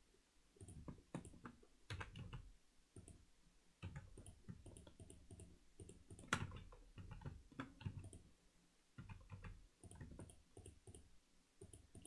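Faint, irregular clicks of a computer keyboard and mouse, with one sharper click about six seconds in.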